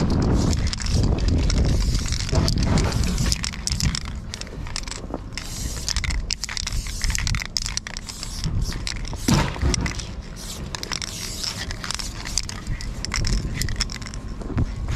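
Aerosol spray-paint can hissing in stretches of a few seconds with short breaks as paint is sprayed onto the train's metal side. A low rumble on the microphone fades after about four seconds.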